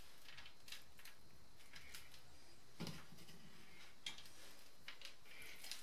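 Faint, scattered soft squishes and light taps of hands rubbing spice marinade into raw whole chickens on a stainless-steel tray.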